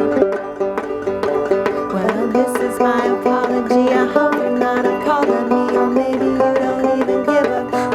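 Clawhammer banjo playing an instrumental passage: a steady stream of quick plucked notes.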